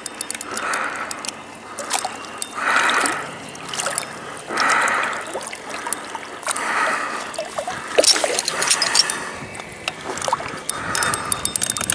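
Water sloshing and lapping around an inflatable float tube in a regular swell about every two seconds, as the angler kicks his fins to move toward shore. A few sharp clicks come about eight seconds in.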